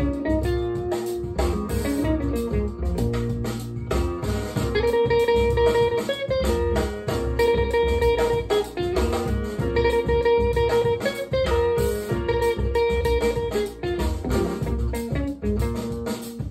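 Guitar-led music with deep bass and a steady beat, played back through a pair of Celef LS8 bookshelf loudspeakers.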